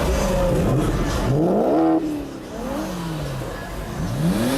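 A car engine revving hard: its pitch climbs steeply and is cut off abruptly about two seconds in, then falls away and climbs again near the end.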